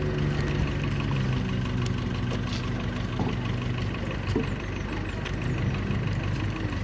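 A motor vehicle's engine running steadily, with a slight change in pitch now and then.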